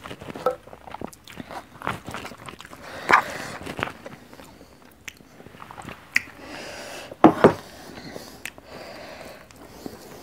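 A person chewing and biting food, with irregular wet mouth sounds and scattered sharp crunches or clicks. The loudest come in a quick cluster a little past the middle.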